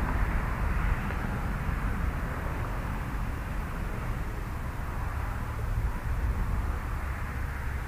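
Steady outdoor background noise: a low, fluctuating rumble with a hiss above it and no distinct events.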